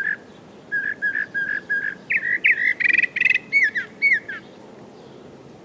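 Northern mockingbird singing: a short note repeated five times at about four a second, then a quicker run of varied notes with a rapid trill and several down-slurred notes, stopping about four and a half seconds in.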